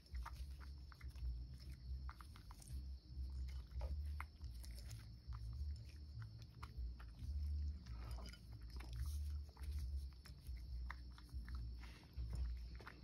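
A cat crunching and chewing dry kibble from a dish, a steady run of repeated bites with small crisp clicks.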